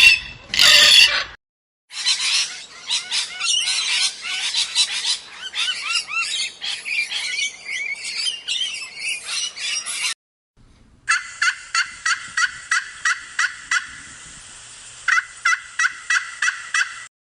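Domestic fowl calling, beginning with the end of a loud call. Then comes a dense chatter of many birds calling over one another. After a cut, a single bird repeats one short call about three times a second, with a short break before it resumes.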